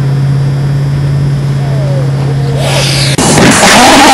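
Model pulsejet engine running with a steady low drone. A little after three seconds in it cuts off abruptly and a loud rushing noise takes over.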